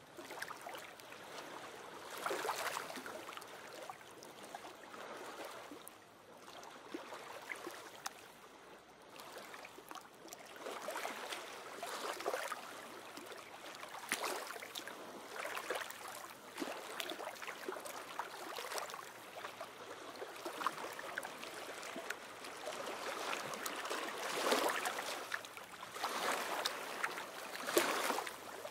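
Small waves washing and lapping onto a sandy lagoon shore. The water noise swells and fades irregularly as each wave comes in, every second or few.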